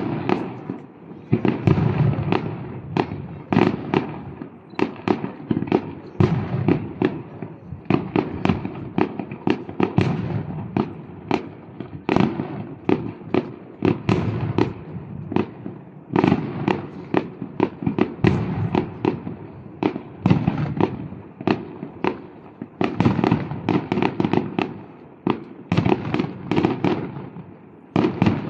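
Aerial fireworks display: a continuous barrage of sharp bangs, several a second, over a low rumble.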